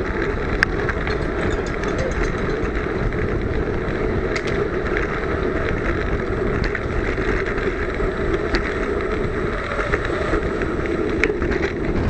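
Steady rumble of riding noise picked up by a camera on a Brompton folding bicycle ridden at speed, mostly tyre and wind noise, with a sharp click or rattle now and then.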